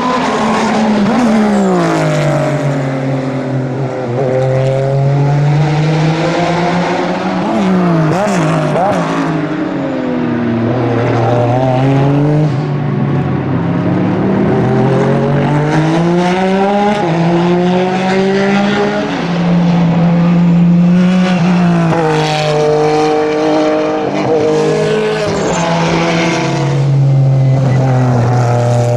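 Porsche 996 GT3 RSR's flat-six racing engine heard from trackside as the car laps, revs climbing and dropping repeatedly through upshifts, downshifts under braking and hard acceleration out of corners.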